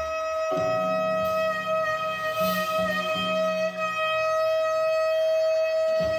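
Alto saxophone holding one long, steady note as the closing note of the tune, over a lower accompaniment. The note starts about half a second in and stops sharply at the end.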